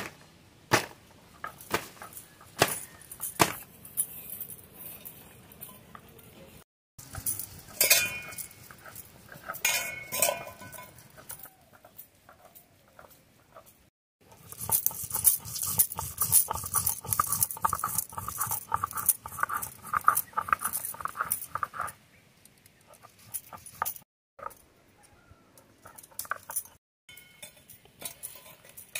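A few sharp scratches and clicks as a match is struck on a matchbox. After a cut, a hand-held grinding stone is scraped back and forth over wet turmeric paste on a stone slab in quick rhythmic strokes for about eight seconds.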